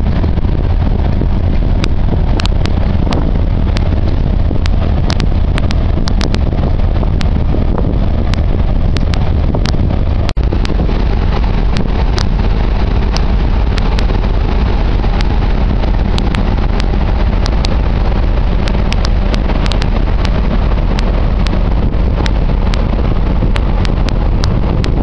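Steady loud rumble on the open deck of a passenger ferry under way: wind buffeting the microphone over the drone of the ship's engines and the rush of its wake, with scattered faint clicks.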